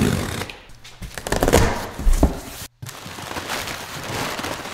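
Cardboard shipping box being opened: the tail of a knife slitting the packing tape, two thumps as the box is handled, then a steady rustling of crinkled kraft-paper packing being moved by hand.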